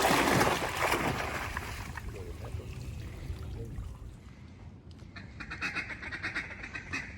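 A rush of noise at the start that fades over the first couple of seconds. From about five seconds in, a fast run of duck quacks.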